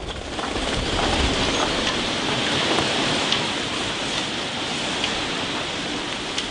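Hurricane-force wind gusting with heavy rain, a steady loud rush of noise.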